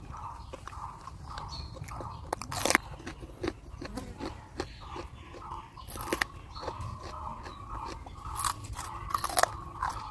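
A person chewing pork curry close to the microphone, with mouth clicks and several louder crunchy bites: one a little under 3 seconds in, one about 6 seconds in, and two more near the end.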